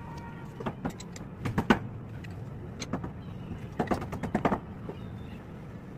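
Sharp metallic clicks and taps as the teeth of a thin saw blade are worked with a notched metal plate, coming irregularly: a few near the start, the loudest about a second and a half in, and a quick cluster about four seconds in. A low steady hum runs underneath.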